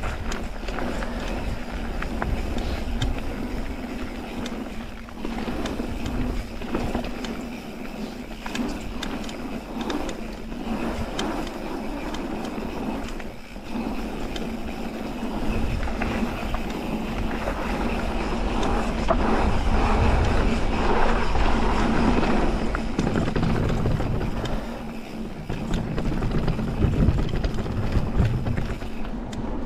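Mountain bike rolling downhill on a dirt and gravel singletrack: constant tyre noise with rattles and knocks from the bike over bumps. Near the end it rolls onto a wooden plank section.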